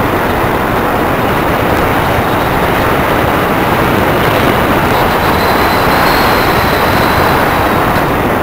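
Loud, steady rush of airflow heard from on board a Multiplex EasyStar RC plane in flight, wind on the microphone, with a faint high whine coming in about halfway through and fading near the end.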